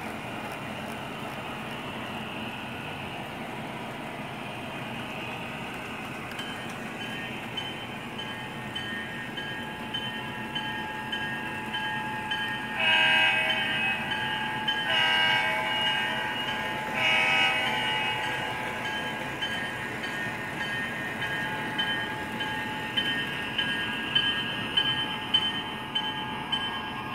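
O-scale model diesel locomotive's MTH Proto-Sound 2 sound system running over the rumble of the wheels and motor on the track, sounding three loud horn blasts about two seconds apart halfway through, the last one shorter.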